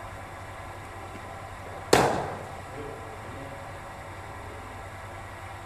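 A single sharp crack of a cricket bat striking the ball about two seconds in, with a short echo trailing after it.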